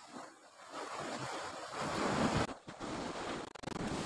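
Sea surf washing in with wind buffeting the microphone, a steady rushing noise that swells about two seconds in and briefly drops out twice near the end.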